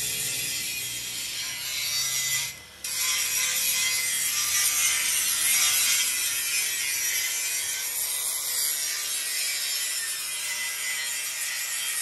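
Arc-welding crackle on steel pipe, then, after a brief break under three seconds in, an electric angle grinder cutting steel pipe with a steady high-pitched grinding hiss.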